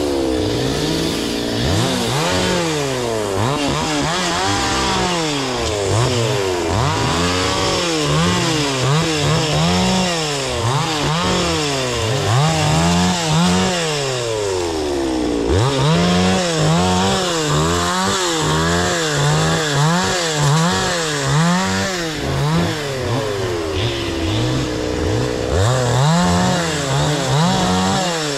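Two-stroke chainsaw running at cutting speed, its engine pitch rising and falling over and over, about every second or two, as it works through timber.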